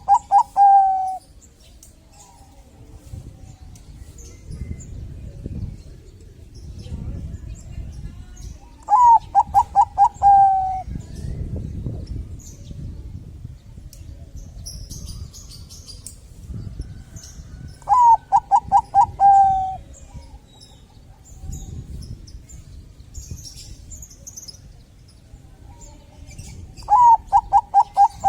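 Bangkok-strain zebra dove (perkutut) cooing: a phrase of about five quick notes ending in a longer falling note, repeated four times about every nine seconds. Small birds chirp faintly in the background.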